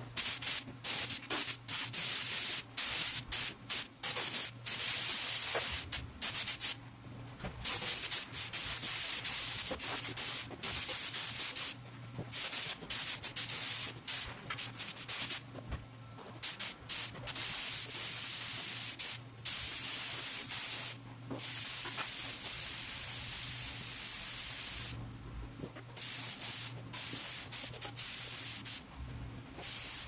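Spray painting with 2K automotive paint: the sprayer hisses in short bursts that start and stop every second or two, over a low steady hum.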